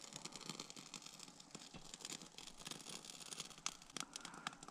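Small stick fire just lit in a stainless-steel wood-burning camp stove, crackling faintly and irregularly as the kindling catches, with a few sharper pops toward the end.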